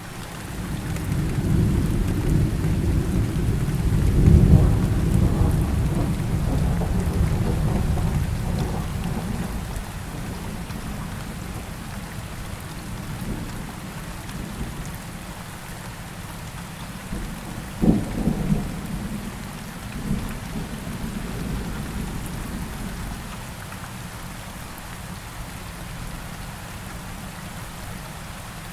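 Thunderstorm: steady heavy rain with a long low thunder rumble that builds and peaks a few seconds in, then a sharp thunder crack a little past the middle followed by shorter rumbles, the storm easing off toward the end.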